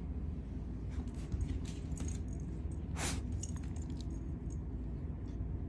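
A pet coughing once, a short harsh burst about three seconds in, over a steady low rumble with a few faint clicks.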